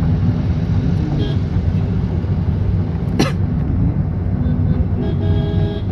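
Steady road and engine rumble of a moving vehicle in city traffic. A sharp click sounds about three seconds in, and a short horn sounds near the end.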